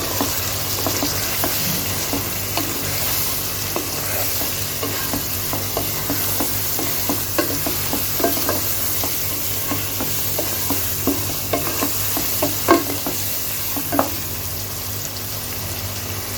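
Onions, potatoes and spice paste sizzling in hot oil in a pan while a spatula stirs and scrapes through them, with a steady hiss and frequent light clicks of the spatula on the pan. Two louder knocks come near the end.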